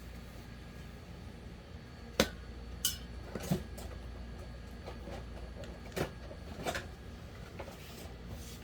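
A handful of separate sharp clicks and knocks, hard parts being handled and tapped while an electric fan is taken apart for repair.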